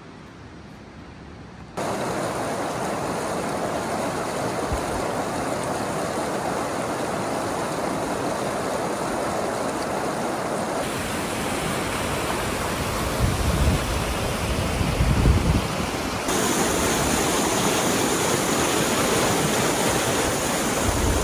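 Fast, rocky mountain river rushing loudly over stones as white water, a steady rushing noise that comes in abruptly about two seconds in. Low rumbles, like wind buffeting the microphone, come and go around the middle.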